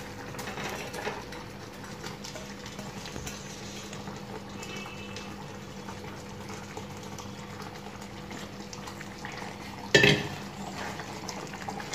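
Curry gravy bubbling steadily in a stainless steel pan on a gas stove, with a sharp clatter of a utensil against the pan about ten seconds in.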